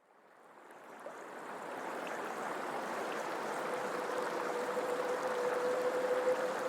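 Steady rushing water fading in from silence over the first couple of seconds, with a faint steady hum joining about halfway through.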